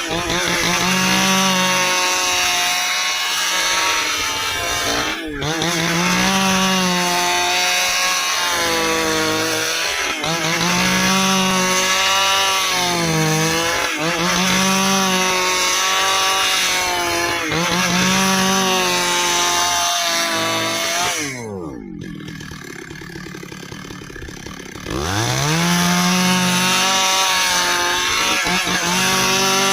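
Stihl two-stroke chainsaw sawing dry ipê hardwood, its engine pitch rising and falling every few seconds as the chain bites and frees in the log. About three-quarters of the way through it drops back to idle for a few seconds, then revs up and cuts again.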